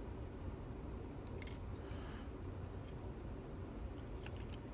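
A few light metallic clicks and clinks of small lock parts being handled while taking apart a Vachette V-DIS+ slider-sidebar lock: a short cluster about one and a half seconds in and a few faint ticks near the end, over a steady low hum.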